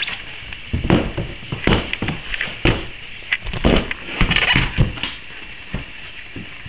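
Irregular knocks, clicks and clunks of handling around an ATV's plastic body panels and under-seat compartment, with the engine off.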